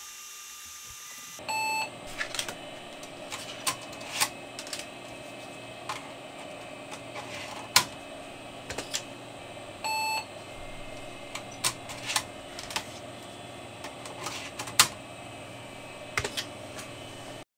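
A computer's internal speaker gives two short beeps, about eight seconds apart, over the steady hum of the running machine; MS-DOS 6.22 Setup is asking for the next setup floppy. Between the beeps come sharp clicks and knocks of floppy disks being swapped in the drive and keys being pressed, two of them much louder.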